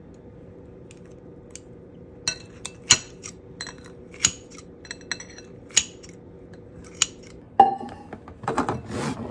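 Cutlery and dishes clinking: a string of light, ringing clinks after a couple of quiet seconds, then a louder burst of clatter and handling near the end. A faint steady hum runs underneath.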